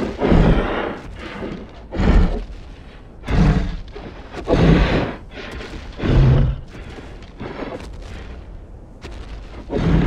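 Dinosaur (Tarbosaurus) sound effect: a run of heavy booming thuds, about one every second and a half, then a longer gap before a last thud near the end, with a low rumble between them.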